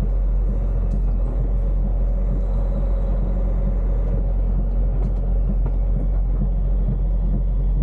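Semi-truck's diesel engine running at low speed while the truck creeps forward, heard from inside the cab as a steady, deep drone.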